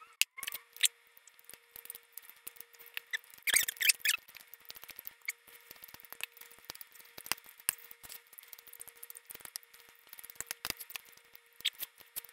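Whole roast chicken being pulled apart by hand and with a fork in a glass baking dish, with wet tearing, squelching and smacking clicks. There is a denser burst of tearing about three and a half seconds in.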